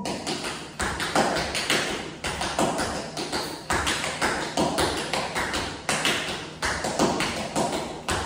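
Tap shoes striking a hard floor in quick rhythmic clusters of sharp clicks: a dancer performing the single time step (shuffle, hop, spring, tap, step, step) over and over.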